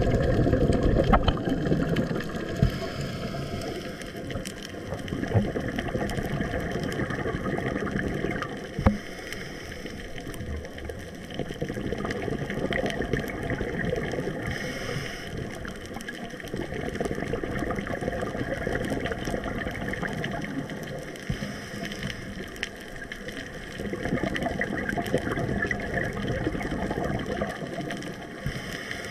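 Underwater ambience heard through a camera's waterproof housing: a muffled, rushing water noise that swells and fades, with a few sharp clicks.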